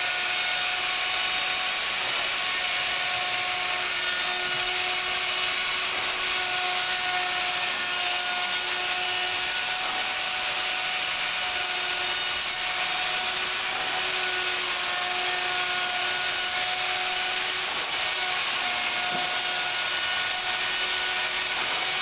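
Wood router running steadily and cutting wood on a slowly turning lathe: a dense hiss with a steady high whine that fades in and out slightly as the bit cuts.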